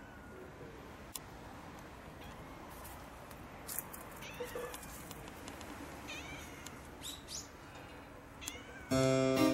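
A domestic cat meowing faintly and repeatedly from high in a tree, a handful of short calls a second or so apart. Light keyboard music comes in near the end.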